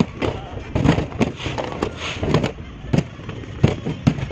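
Aerial fireworks exploding in a barrage: loud bangs, about two or three a second and irregularly spaced, over a continuous rumble of further bursts.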